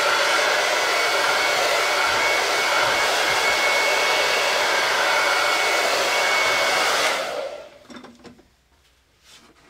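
Handheld hot-air dryer blowing steadily, switched off about seven seconds in and winding down, followed by a few small knocks.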